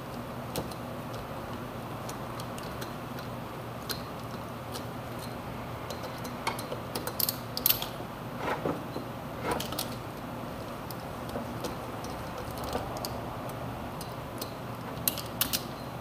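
Socket ratchet wrench clicking and metal tools clinking as the bolts of an engine's side cover are undone, over a steady low hum. The sharpest clicks and knocks come in a cluster midway and again near the end.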